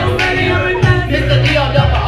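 Loud music with singing over a heavy, steady bass line.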